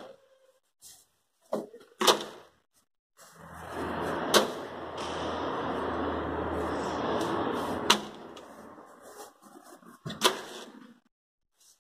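Bags of activated-carbon filter media being handled and set down in a plastic barrel filter. There are four sharp knocks and a few seconds of rustling in the middle.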